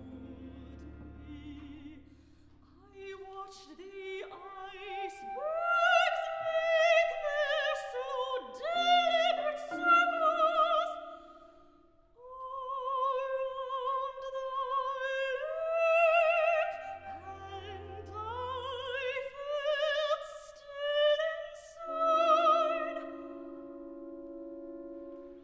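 Female operatic voice singing high phrases with wide vibrato, sliding up into long held notes, over sparse sustained tones from a small chamber ensemble of strings and woodwinds. There is a short break in the singing about halfway through, and a low bass note sounds briefly after it.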